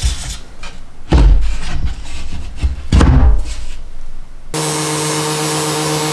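Hollow wooden knocks and thunks as a plywood table-saw insert plate is set and seated into its recess in a plywood benchtop, three times. About four and a half seconds in, the bench's saw motor starts running abruptly, with a steady hum and hiss.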